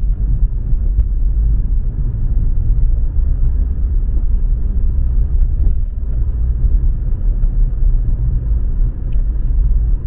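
Steady low road and engine rumble of a car being driven, heard inside the cabin.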